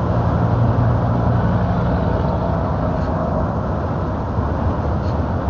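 Truck engine running with road noise, a steady low drone that swells a little in the first second and then holds.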